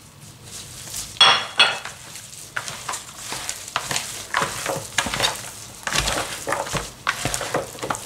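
Gloved hands mixing cubed raw meat and sliced onions with ground spice in a large plastic bowl: irregular wet squishing and rustling strokes. About a second in there are two sharp knocks as the spice is tipped in from a dish.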